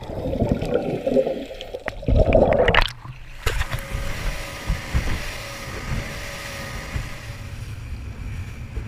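Underwater bubbling and gurgling from scuba exhaust bubbles, in choppy surges. About three seconds in it cuts to a small inflatable boat running at speed: a steady engine hum with wind and rushing water.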